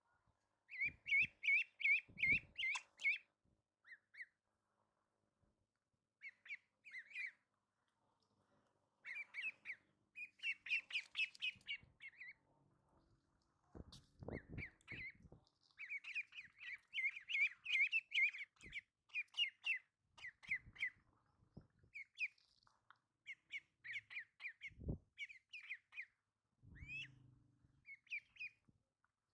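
Ducklings peeping: runs of short, high chirps, several a second, broken by brief pauses. A few dull thumps come in between.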